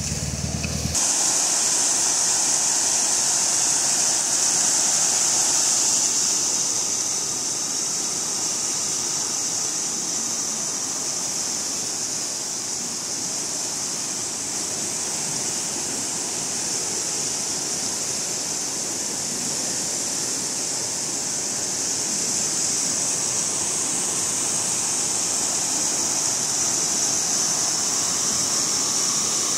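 Swollen, muddy river in flood rushing over and around rocks, a steady loud sound of turbulent water.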